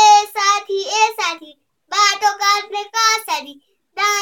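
A young boy singing unaccompanied in Nepali, in short phrases with brief pauses between them.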